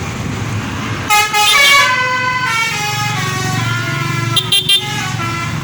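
Indonesian bus 'telolet' musical horn playing a tune of stepped, mostly falling notes, starting about a second in, with three short, louder blasts near the end, over a low engine rumble.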